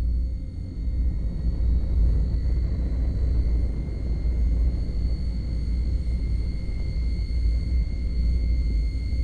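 Rockets in flight: a steady, loud, low rumble with a thin high whistle held over it.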